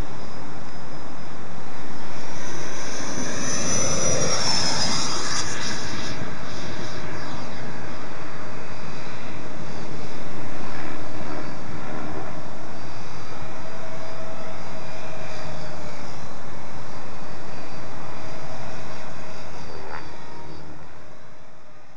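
Electric ducted fan of a 90mm RC jet (an 11-blade fan on a 1500kv inrunner) whining as the model flies a pass, its pitch falling as it goes by a few seconds in. Afterwards a steadier whine and rushing fan noise as it flies on, fading out near the end.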